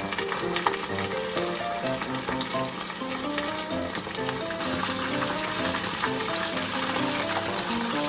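Floured karaage chicken pieces deep-frying in a small pot of hot oil, a dense steady sizzle that grows a little louder about halfway through.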